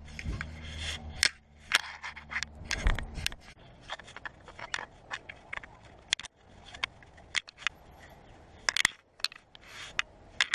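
A run of irregular clicks, knocks and scrapes, with a low steady hum in the first few seconds that then fades.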